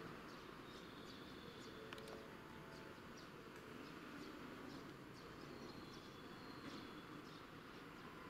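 Quiet outdoor ambience: a faint steady hiss with small birds chirping, many short high calls scattered throughout.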